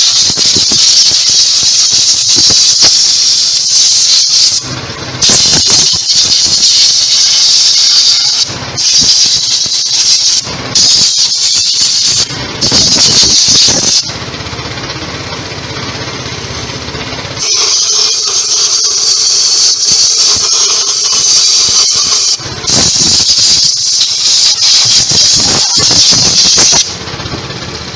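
Compressed air from a hand-held air-hose nozzle blowing through a carburetor and intake manifold, a loud high hiss in about seven bursts of one to five seconds, with a quieter spell in the middle. The air is blowing the wash water out of the passages to dry the parts.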